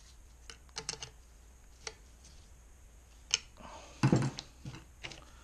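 Scattered small metallic clicks and taps of a screwdriver tip prying at a snap ring inside an NP231 transfer case. About four seconds in comes a louder knock and clatter of tools being handled on the bench.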